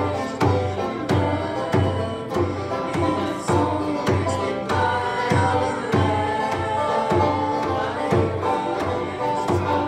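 Live church music: children singing together with a strummed acoustic guitar and an electric guitar, over a steady low beat a little under twice a second, with hand percussion.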